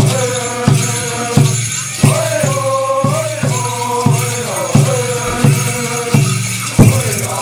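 A chorus of low voices singing a dance song together over a steady beat of about three strokes every two seconds, with a constant jingling and rattling from the dancers' costumes and rattles.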